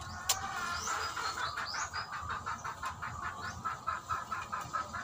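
An animal calling in a fast run of short repeated notes, about five a second, starting about a second in and carrying on with a few higher rising chirps among them. A single sharp click comes just after the start.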